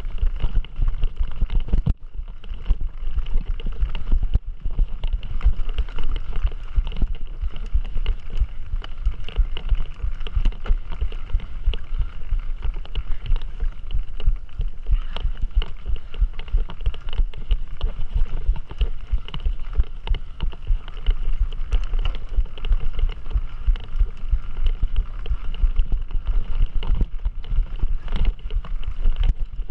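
Mountain bike ridden over rough trail: a constant low rumble broken by rapid, uneven jolts and knocks, with a faint steady whine above it.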